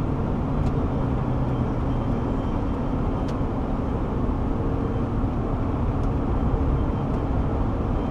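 Car driving at highway speed: steady tyre, wind and engine noise with a faint low hum.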